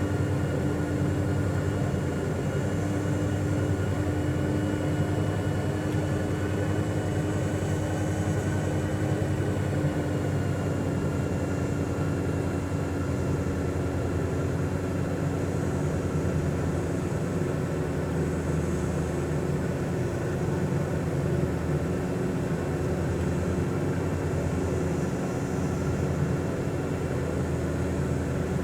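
A steady mechanical drone with several held tones, which shift slightly in pitch about ten seconds in.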